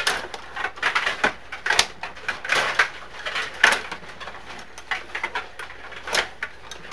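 Table hockey game in play: rapid, irregular clacks and knocks of the rods being pushed, pulled and spun and of the puck striking the players and the boards.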